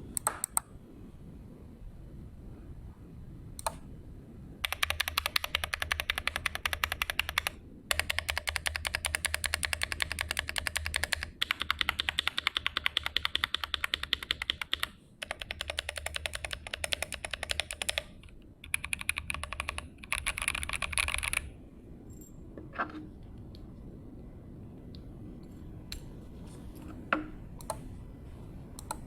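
Typing on a GMMK Pro mechanical keyboard with stock Gazzew Boba U4T tactile switches on an aluminum plate, under GMK keycaps. Runs of rapid keystrokes with brief pauses, bracketed by a few single key presses near the start and toward the end.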